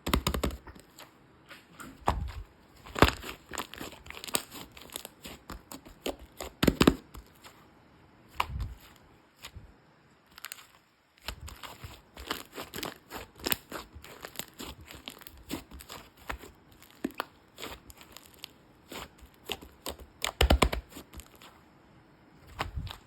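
Fluffy clay slime being handled and stretched, with irregular sticky crackles, small pops and tearing sounds. A few louder pops stand out, and there is a short pause about halfway through.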